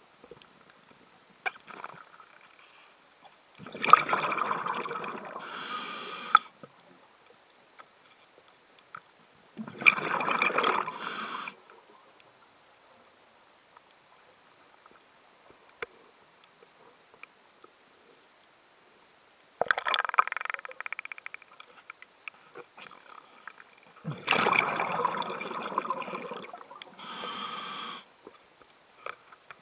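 Scuba diver breathing on a regulator, heard underwater from a mask-mounted camera: bubbling exhalation bursts of a second or two, some followed by a short higher hiss of inhalation, four breaths with long pauses between.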